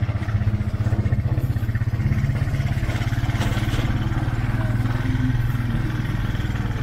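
Small motorcycle engine running steadily at an even cruising speed, heard from on board as it travels along a dirt road, with a fast, even putter.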